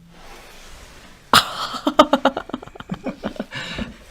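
A person's wordless vocal reaction: a sudden sharp outburst about a second and a half in, then a fast run of short breathy pulses like laughter, dying away before the end.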